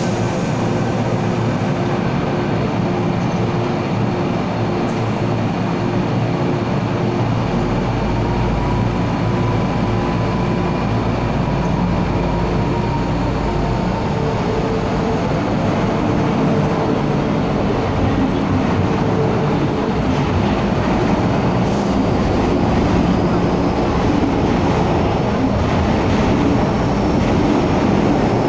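MTR M-Train electric multiple unit pulling out of the platform and accelerating past. It runs with a steady hum and rumble and a faint rising whine as it gathers speed, growing slowly louder toward the end as the cars rush by.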